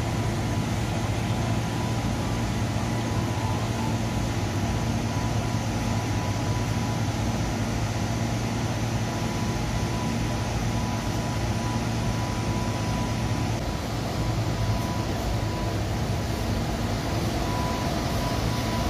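Industrial glove-washing machinery running steadily: a continuous low hum with a thin, steady tone above it.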